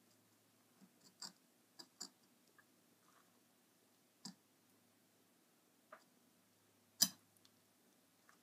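Kitchen knife cutting open a catfish's belly on a plastic cutting board: a few scattered faint clicks and ticks as the blade works through the skin and touches the board, with one sharper click about seven seconds in.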